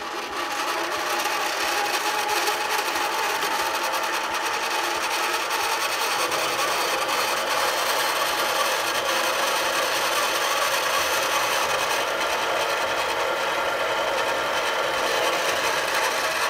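Harbor Freight mini metal lathe switched on and running with the half-nut engaged for auto feed: the spindle motor and change-gear train make an even, steady whir as the carriage feeds along the bed.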